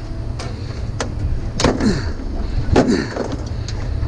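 Hand cutters working on scrap metal: a few sharp clicks and two short falling squeaks of metal under strain, over a steady low rumble.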